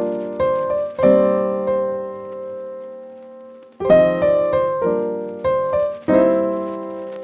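Background piano music: chords struck and left to ring, one held chord dying away for a few seconds before the playing resumes about four seconds in.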